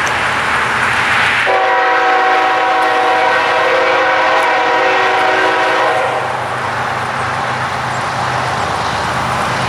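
Multi-chime air horn of a freight train led by a GE ES44C4 diesel locomotive, sounding one long blast of about four and a half seconds, several notes at once, over a steady rushing noise. After the horn, the low steady drone of the approaching diesel engines.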